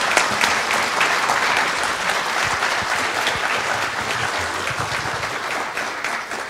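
Audience applauding, a steady clapping that eases off slightly near the end.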